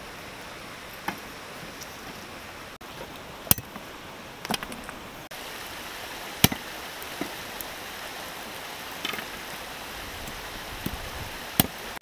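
A blade chopping on a wooden block: about eight separate sharp strikes at an uneven pace, the loudest about three and a half and six and a half seconds in. Under them runs the steady rush of a shallow river.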